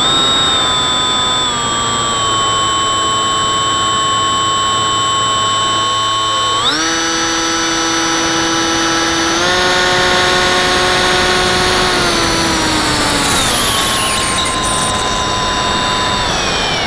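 Electric motor and propeller of a Bixler 3 FPV model plane, heard through its onboard camera: a steady whine over a hiss of rushing air. The pitch steps up about seven seconds in and again a few seconds later, then slides back down as the throttle is eased.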